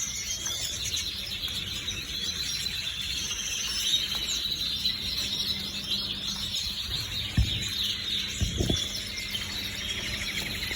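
Canaries chirping and trilling steadily in high, rapid phrases. Two short low thumps cut in about seven and a half and eight and a half seconds in.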